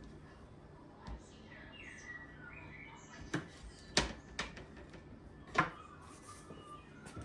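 Small birds chirping faintly, with a few sharp clicks or knocks, the loudest about four seconds in.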